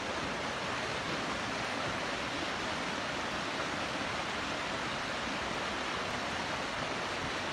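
Swollen floodwater of a river rushing and churning in rapids, a steady rushing noise.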